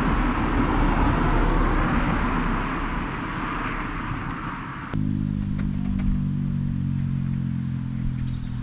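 Rumbling outdoor noise for about five seconds, then an abrupt change to a steady, low engine hum.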